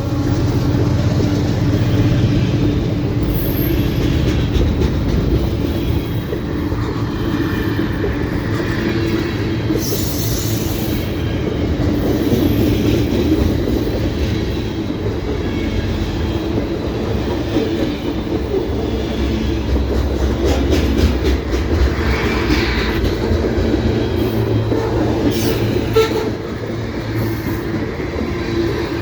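Canadian Pacific (CP Rail) train passing close by: a steady loud rumble and clatter of wheels over the rails, with a few brief high squeals.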